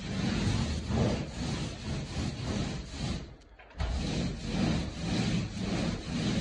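Paint roller on an extension pole rolling wet paint over a drywall wall in repeated up-and-down strokes, a rhythmic rubbing, sticky swish. It breaks off briefly about halfway through, then carries on.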